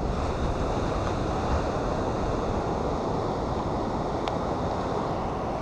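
Steady wash of ocean surf breaking on a beach, mixed with wind on the microphone.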